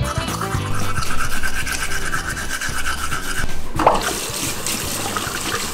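Manual toothbrush scrubbing teeth, a scratchy, rhythmic brushing. About three and a half seconds in, a tap runs as the toothbrush is rinsed under it, after a short swooping tone.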